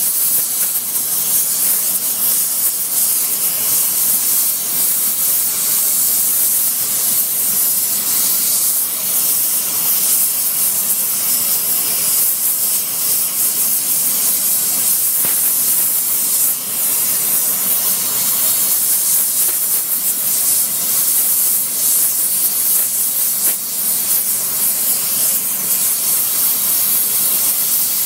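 Hand-held gas brazing torch flame with a high, even hiss, heating a steel cane-shredder hammer to braze a hard-facing alloy cord onto its edges.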